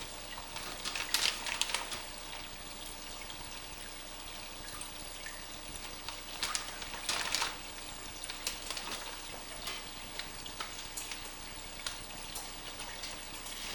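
Aquarium water sloshing and splashing in short bursts as fish are netted out of floating transport bags, over a steady trickling hiss of running water.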